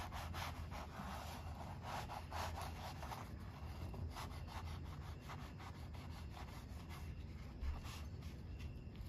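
A knife sawing back and forth through a crisp baked choux pastry shell to split it open, a dry rasping scrape in repeated quick strokes.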